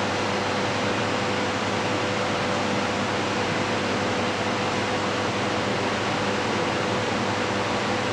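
Soft-serve ice cream machine running while its twist handle is held open to dispense: a steady fan-like rush with a constant hum underneath, from the machine's refrigeration and motors.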